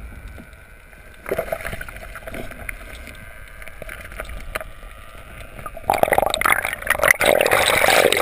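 Underwater sound heard through a diver's camera housing: muffled water movement with scattered clicks, then about six seconds in a sudden, much louder rush of bubbles and churning water as the diver heads for the surface.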